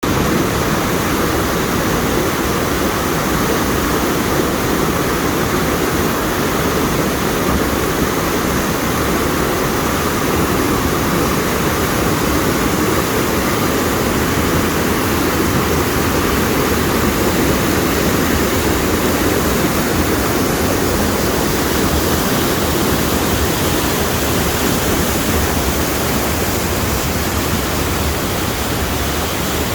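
Mountain stream rushing over rocks in a stretch of rapids: a steady, loud roar of white water.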